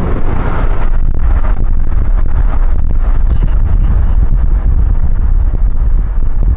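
Road noise from a moving car heard from inside: a loud, steady low rumble of tyres and wind, buffeting the microphone.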